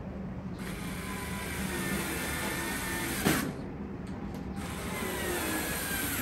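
Cordless electric screwdriver driving sheet-metal screws into a dryer's control-panel cover, running in two bursts. Each burst ends in a sharp click as the screw seats, and the whine drops in pitch toward the end of the second burst.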